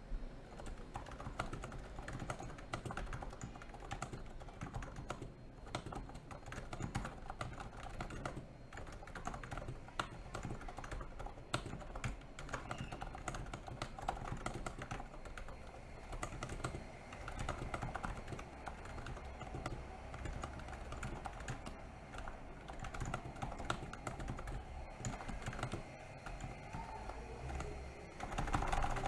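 Typing on a NIZ Plum 87 electro-capacitive keyboard: a fast, continuous patter of keystrokes, several a second, with a louder flurry near the end.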